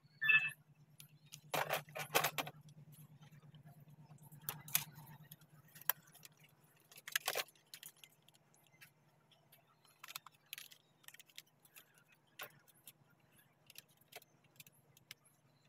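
Scattered small clicks, taps and short rattles of a portable Bluetooth speaker's housing and circuit board being handled, over a faint steady low hum.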